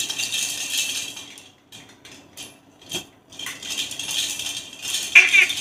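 Plastic baby rattle being shaken in short bursts, a light clattering with a pause in the middle and a single click about three seconds in. Near the end a baby gives a high squeal.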